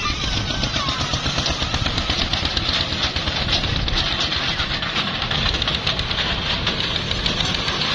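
Kiddie ride train running, with a rapid, steady mechanical clatter from its small engine.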